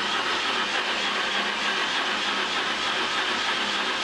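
BMW R1100RSL boxer twin spun steadily by its starter motor without firing. The engine does not catch, and to the mechanic the cranking doesn't sound right.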